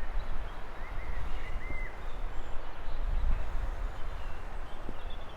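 Steady wind rumble and hiss on the microphone, with small birds giving short high chirps, most of them in the first two seconds.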